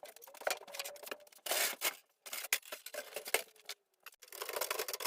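A benchtop table saw being taken apart by hand: an irregular run of clicks, rattles and scrapes as its parts are handled and worked loose.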